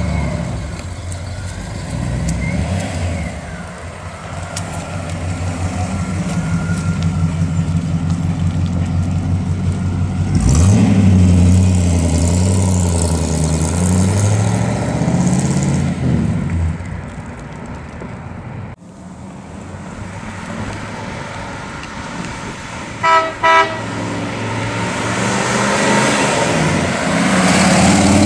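1954 Ford Customline's 292 V8 with a four-barrel carburetor and glasspack mufflers running as the car drives by, revving up as it accelerates about ten seconds in. Near the end, two short car-horn toots.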